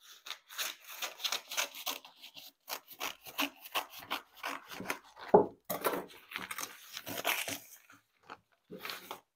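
Handling noises on a worktable: rustling, crinkling and tearing, with one heavier thump about five and a half seconds in.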